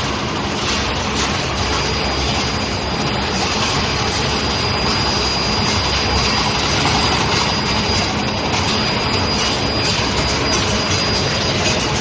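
Steady loud machine din of a running steel-bar induction heating furnace line, with the bar feed conveyor and pinch rollers working. A thin, high, steady whine comes in about a second and a half in and stops shortly before the end.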